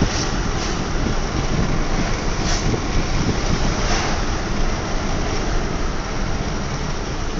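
Steady rush of road and wind noise inside a moving car.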